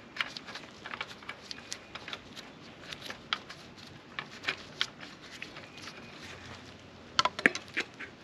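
A 1987 Porsche 944 fuel level sending unit being reassembled by gloved hands: scattered small plastic clicks and rubbing as the end cap is worked onto the aluminium tube. A quick run of sharper clicks comes about seven seconds in, as the plastic housing goes onto the tube.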